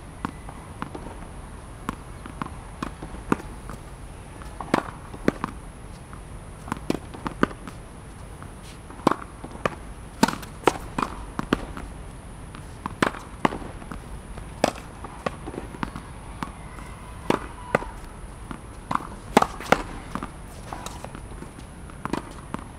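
Tennis ball being hit with a racket against a practice wall: a run of sharp pops from racket strikes and the ball hitting the wall, irregularly spaced and often in quick pairs.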